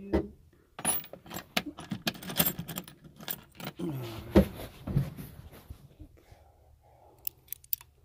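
Metal tools clinking and rattling as they are rummaged through in a metal truck-bed toolbox: a quick run of clicks and clatters, busiest in the first five seconds and sparser near the end.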